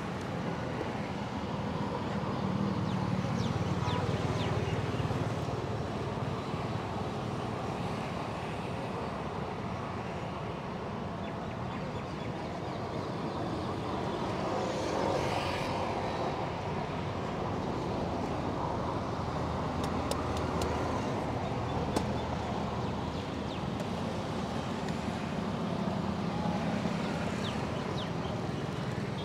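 Steady low rumble of outdoor background noise, with a few faint clicks about two-thirds of the way through.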